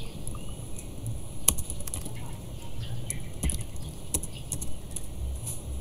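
Computer keyboard typing: irregular key clicks, one louder about one and a half seconds in, over a low hum.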